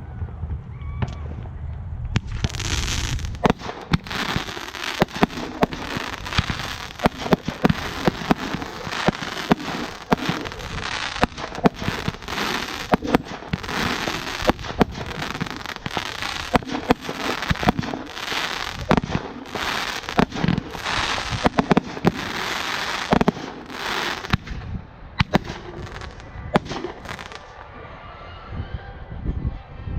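Volcano (ground fountain) fireworks burning: a steady hiss of spraying sparks thick with crackling pops, starting about two seconds in and dying away with a few last crackles near the end.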